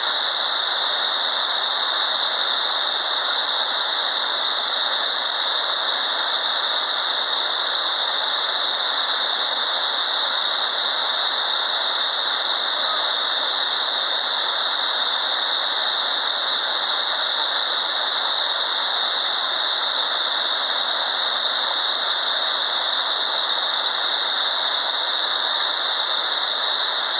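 Waterfall rushing in a steady, unbroken roar with a strong high hiss.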